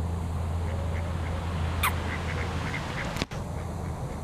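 Mallard ducks quacking: one stronger call about two seconds in, then a run of short, quick calls, over a steady low rumble.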